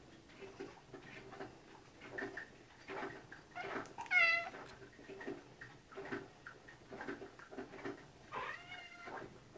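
A black-and-white domestic cat meowing twice, begging for its wet food: a loud meow about four seconds in and a second meow near the end that rises and falls in pitch.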